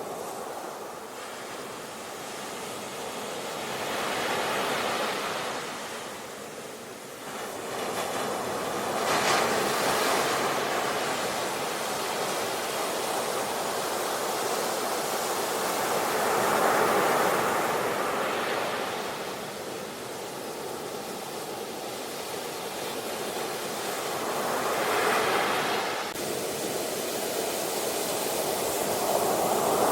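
Ocean waves breaking on a shore: a continuous rushing wash that swells and ebbs, with several stronger crashes every few seconds.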